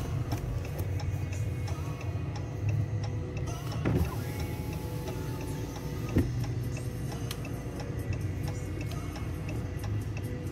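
Steady low rumble of a car idling, heard from inside the cabin, with a run of light ticks and two louder knocks about four and six seconds in.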